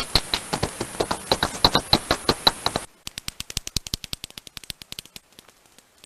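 Bat echolocation calls played back through a bat detector as a fast train of dry clicks. About three seconds in it changes to a quicker, quieter click train, the call of a second bat species, which fades out before the end.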